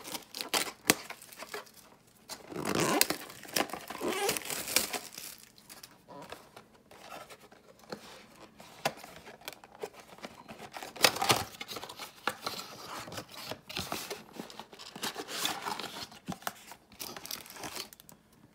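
Yu-Gi-Oh trading-card box packaging being torn open and crinkled by hand: wrapper tearing and rustling, with many sharp irregular clicks.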